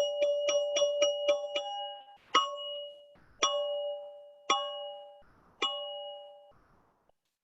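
ZenTube chime struck repeatedly, its bright ringing tones alternating quickly between two pitches. Then four single strikes about a second apart, each left to ring out and fade.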